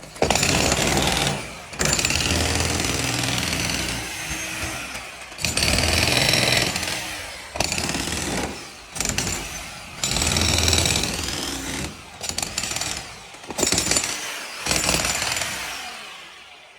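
A power tool running loudly in several runs of a few seconds each, with short breaks or cuts between them and the pitch rising and falling in places.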